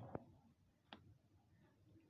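Near silence, with two faint clicks, one just after the start and one about a second in.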